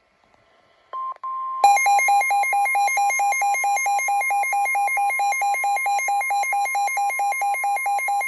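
Emergency alert tones for a flash flood warning. After a short beep about a second in, a steady high tone begins, with a lower beep pulsing about four times a second over it.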